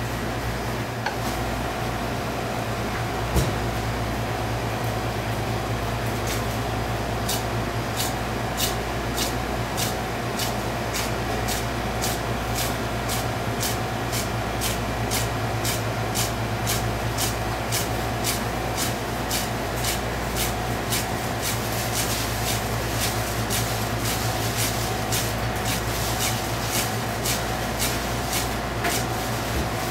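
Bone-cutting knife chopping crosswise through a pike conger (hamo) fillet, severing its fine bones down to the skin: a crisp click with each stroke. The clicks come at about two or three a second from some seven seconds in and grow quicker and denser in the second half, over a steady low hum.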